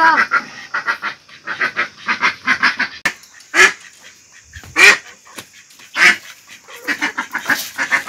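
Domestic white ducks quacking: a quick run of short quacks for the first few seconds, then three louder single calls about a second apart, and more short quacks near the end.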